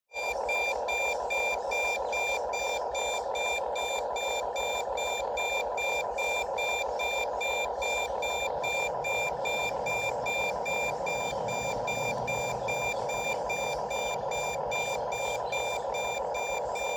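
Rapid, evenly repeated electronic beeps over a steady droning hum, like a vehicle's reversing alarm.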